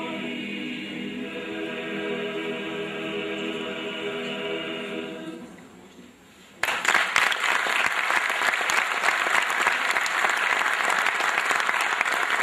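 Mixed choir singing unaccompanied, its last chord dying away about five seconds in; after a short pause the audience breaks into applause, which continues to the end.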